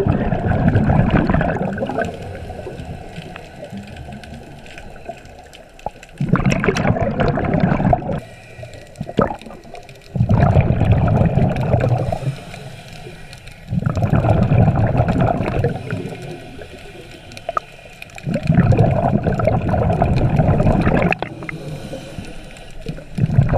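Scuba diver breathing through a regulator, heard underwater: a bubbling rush of exhaled bubbles lasting about two seconds, coming about every four to five seconds, with quieter stretches between.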